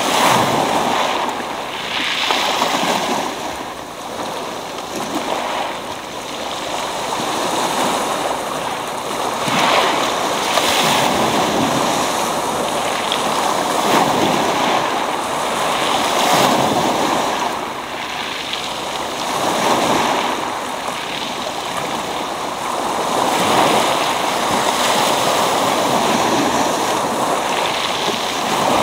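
Sea waves breaking one after another on a pebble beach, surging and washing back over the stones, the wash swelling and easing every few seconds.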